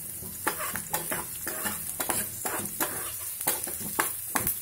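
Chopped onions sizzling in hot oil in a steel frying pan, a steady hiss broken by irregular sharp crackles and clicks as whole green chillies go into the pan.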